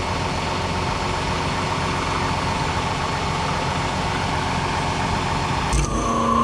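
Farm tractor engine running steadily. Near the end there is a short knock, followed by a steady whine.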